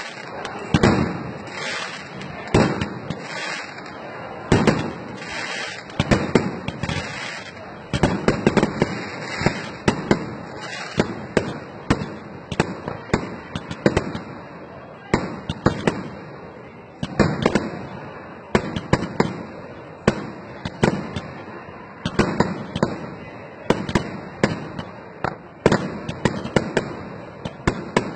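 Aerial fireworks display: a continuous run of shell bursts, sharp bangs coming about once or twice a second, with crackling between them.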